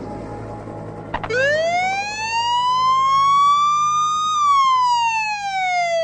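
Emergency-vehicle siren in a slow wail: about a second in it starts and sweeps up in pitch for about three seconds, then slides slowly back down.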